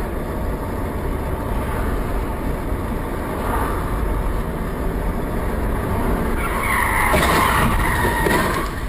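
Steady road and engine rumble inside a moving car, then about six and a half seconds in the car's tyres squeal for about two seconds as it skids.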